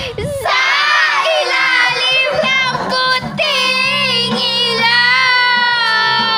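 Karaoke singing through a handheld microphone: a high voice holds long, wavering notes over a steady backing track.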